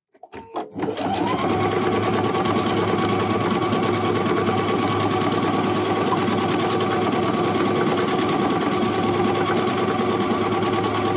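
Husqvarna Viking Epic 95Q computerized sewing machine starting with a few clicks, then speeding up about a second in and running steadily, stitching out a built-in stippling stitch.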